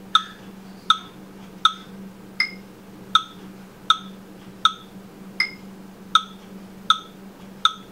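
Electronic metronome clicking about 80 beats a minute, every fourth click higher in pitch to mark the downbeat of a 4/4 measure, over a steady low hum.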